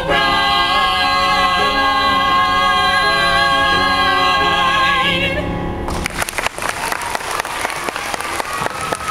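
Several voices singing in harmony hold the final chord of a song, stopping about five and a half seconds in. An audience then breaks into applause.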